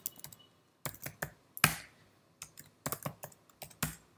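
Typing on a computer keyboard: irregular keystroke clicks in short runs, with one louder key strike about one and a half seconds in.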